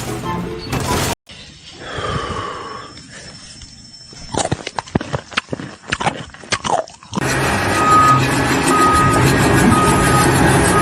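Music cuts off about a second in, followed by scattered knocks and clatter. From about seven seconds in, steady heavy machinery runs with a short beep repeating about once a second, like a construction vehicle's reversing alarm.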